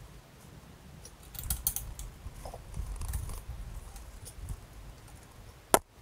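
Hands working on a machine during assembly: scattered light clicks and rattles of small parts and tools, then one sharp click near the end, the loudest sound.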